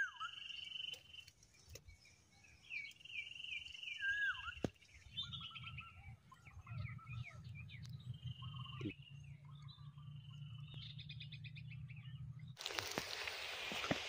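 Several wild birds calling in trees: short chirps, falling whistles and a high steady trill that comes and goes. Near the end a steady rushing noise sets in.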